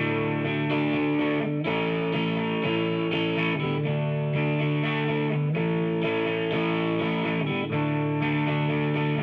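Background music: guitar-driven track with distorted electric guitar.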